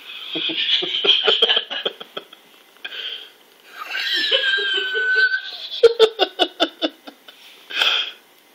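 A man laughing in two runs of short, rapid bursts, with a high, drawn-out sound falling in pitch between them.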